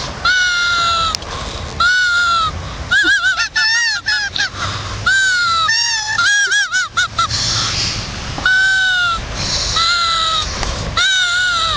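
Grass-blade whistles: blades of grass stretched between the thumbs and blown, giving a string of high honking squawks. Some notes hold steady, others waver rapidly in pitch, and around the middle several whistles overlap.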